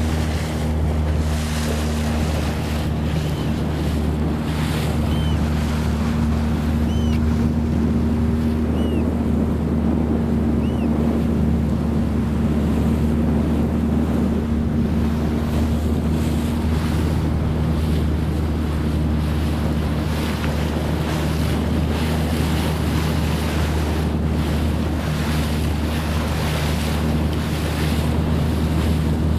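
Motorboat engine running steadily under way, a constant low hum, with wind buffeting the microphone and water rushing and splashing past the hull.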